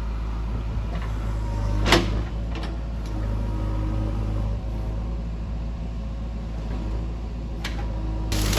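JCB backhoe loader's diesel engine running steadily under load while digging into a rocky hillside, with a sharp knock about two seconds in and a fainter one near the end, as the bucket strikes rock.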